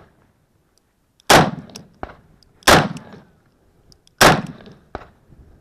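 Three handgun shots about a second and a half apart, each with a trailing ring-out. Fainter sharp knocks follow the first and third shots.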